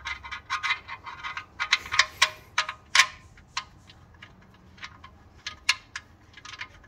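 Sump drain plug being threaded back into a Toyota Corolla's steel oil pan by hand: a run of quick metallic clicks and light taps with a short ring, thick in the first three seconds or so and sparser after.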